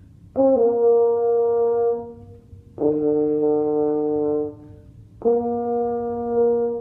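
French horn playing three held notes, high, low, high, each about a second and a half with short breaths between. It is a practice drill going back and forth between F and the lower A, an interval the player finds tricky.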